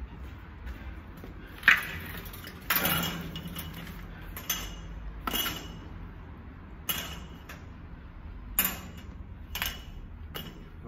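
Irregular metallic clanks and knocks, about eight in all, from heavy metal objects striking each other; one about three seconds in rings on briefly.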